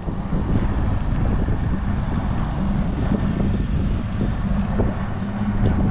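Tiller-steered outboard motor running steadily with a low hum as a small skiff motors along, with wind buffeting the microphone.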